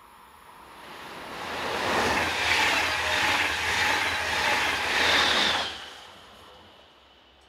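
DB Intercity 2 double-deck passenger train passing close by at speed: the rushing wheel and rail noise swells over a couple of seconds, stays loud for several seconds, then drops off sharply as the last coach goes by.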